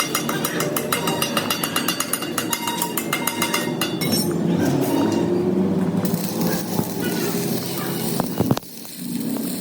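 Rapid, evenly spaced metallic clinking, about eight strikes a second, for the first four seconds, then a jumble of workshop noise. The sound cuts off abruptly near the end.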